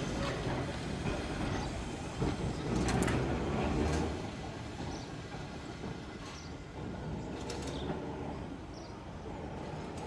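1922 Glasgow Corporation double-deck electric tram running past on its rails and moving away, with a steady rumble and a few sharp clicks. It is loudest in the first four seconds, then fades as the tram draws off.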